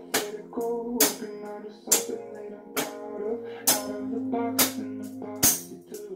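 Music: sustained guitar-like plucked-string notes over a steady beat, with a sharp percussive hit about once a second.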